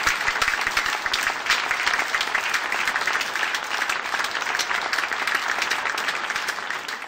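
Applause: a dense, steady patter of many hands clapping, fading out near the end.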